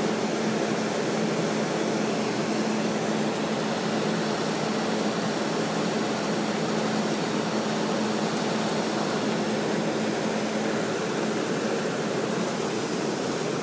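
Steady running of welding equipment on a steel pipeline job: a constant hum with an even hiss over it, unchanging throughout.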